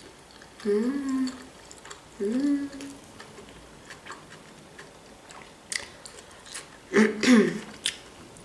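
A person chewing food with the mouth closed, with two short closed-mouth hums about a second and two and a half seconds in, and a louder brief vocal sound near the end.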